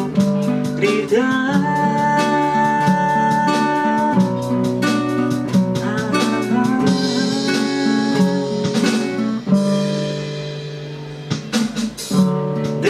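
A song with guitar: a voice slides up into a long held sung note on the word 'gritar' about a second in, held until about four seconds, then the guitar-led accompaniment carries on without singing.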